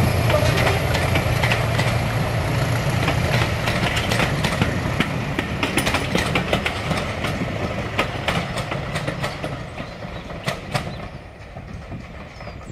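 Passenger train hauled by a pair of diesel locomotives rolling away: wheels clicking over the rail joints over a low engine rumble, fading steadily as it goes.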